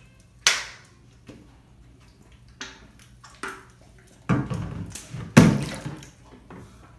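Water splashing in a shallow bathtub as a small wet dog is washed by hand: a few short splashes, then a louder run of splashing for about two seconds near the end.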